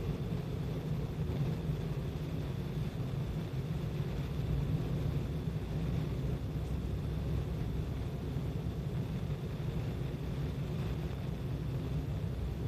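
Steady low rumble of road and engine noise from a moving car, heard from inside the car.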